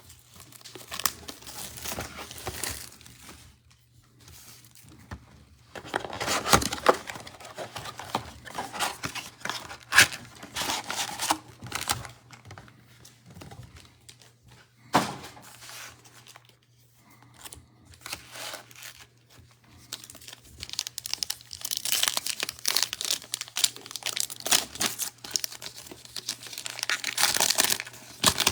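A cardboard blaster box of trading cards being torn open and the card pack wrappers ripped and crinkled, in irregular bursts of tearing and rustling, with one sharp click and a duller thunk partway through.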